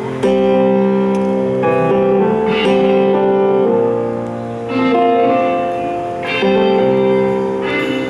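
Keyboard playing slow, held chords that change every second or two, as part of a band jamming at a sound check.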